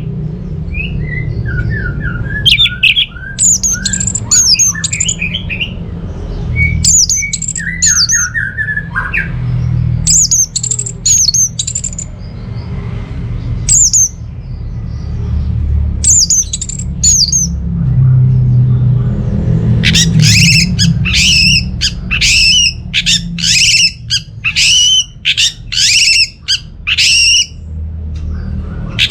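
Orange-headed thrush singing: varied short, high, warbled phrases with pauses, then from about 20 s in a fast run of repeated harsh, squawky notes, several a second.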